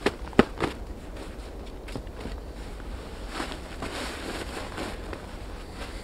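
Three sharp clicks or knocks in the first second, then a stretch of rustling from about three to five seconds in as a hiker's jacket, hood and gear are handled.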